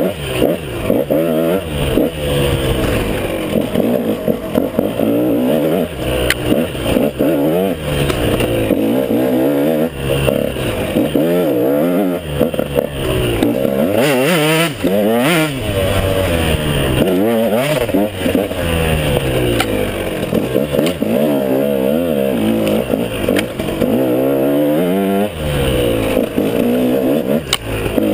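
KTM 150XC two-stroke single-cylinder dirt bike engine being ridden on and off the throttle, its pitch rising and falling again and again every second or two, with a few sharp knocks from the bike over the trail.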